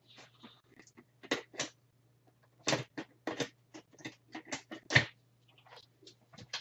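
Hard plastic Ninja blender parts (cups, lids, blade assemblies) clicking and knocking against each other and the base as they are picked up and set down, in a quick irregular series, over a faint steady low hum.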